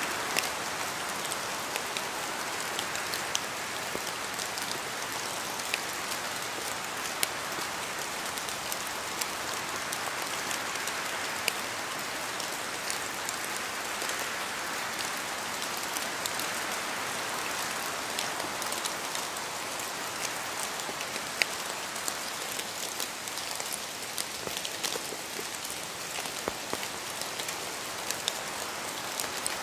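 Steady rain falling on a surface, an even hiss dotted with many sharp drip and drop ticks.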